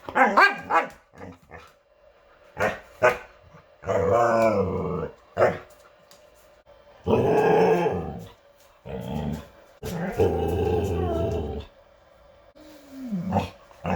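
Huskies 'talking': a run of drawn-out, wavering grumbling calls with a growl in them, mixed with a few short yips, in separate bursts of one to two seconds with pauses between. The last call slides down in pitch.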